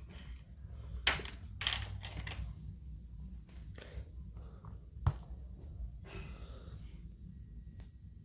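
Handling noises of a small opening tool against an iPhone's casing: a few clicks and short scrapes, with one sharp click about five seconds in.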